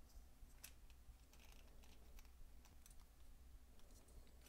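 Faint, scattered small clicks of a hex key turning the captive bolt inside a plastic Quad Lock vibration dampener, with the plastic parts handled in the hands.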